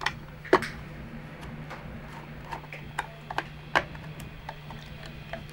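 Irregular sharp clicks and taps as a small homemade ring modulator box is handled and its push buttons pressed, over a steady low hum.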